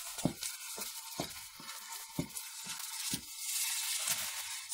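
A wooden cooking stick stirring and pressing stiff ugali dough in an aluminium pot, giving about half a dozen irregular dull knocks against the pot over a steady hiss.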